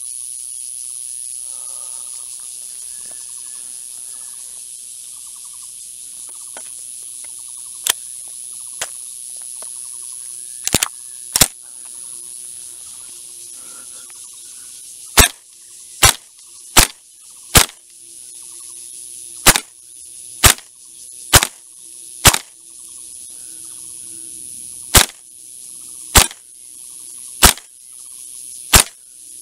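VFC HK416D Gen2 gas blowback airsoft rifle fired in semi-auto, single shots. Two shots come about eleven seconds in, then after a short pause a steady string of about a dozen sharp cracks roughly a second apart.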